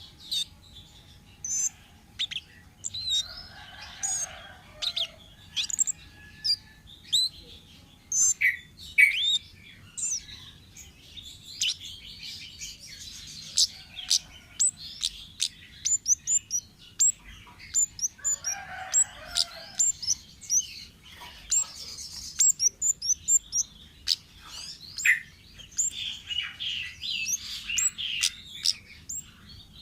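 Wild kemade songbird calling: a rapid, irregular series of short, sharp chirps and quick downward-sliding whistles, repeated in bursts.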